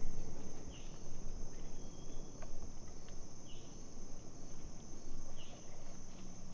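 Steady, high-pitched drone of an insect chorus, crickets or katydids, in summer woods, with a short chirp repeating about every two seconds.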